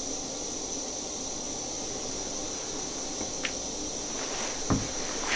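Quiet indoor room tone: a steady faint hiss with a thin high whine. A light click about three and a half seconds in and a soft thump a second later.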